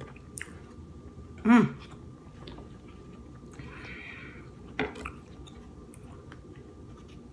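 Close-up mouth sounds of someone eating king crab legs: chewing, with scattered small clicks and a short noisy crunch about four seconds in. A brief hum of the voice about a second and a half in.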